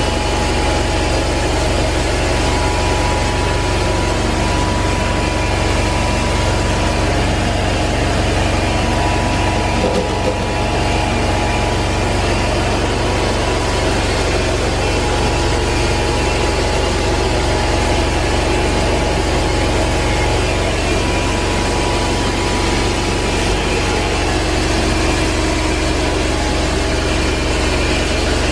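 Rotovac 360 rotary carpet extraction head running over carpet, its spinning head and vacuum extraction making a steady machine noise with a few steady tones in it.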